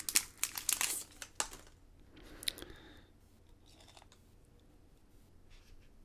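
Crinkly plastic packaging crackling and tearing as something is pulled out of it, then a few faint small clicks and taps.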